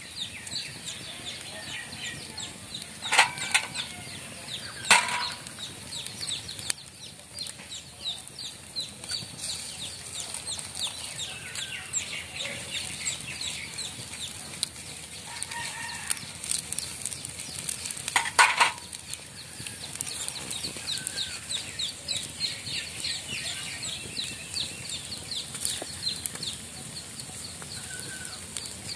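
Open wood fire crackling steadily under skewered fish, with three louder sharp cracks about three, five and eighteen seconds in.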